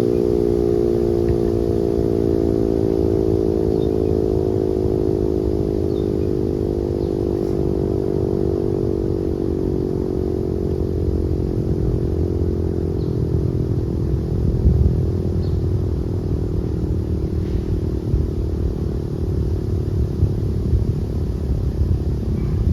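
Sentry 7V8 omnidirectional outdoor warning siren winding down after its alert: its tone slowly falls in pitch and fades away. A steady low rumbling noise runs underneath.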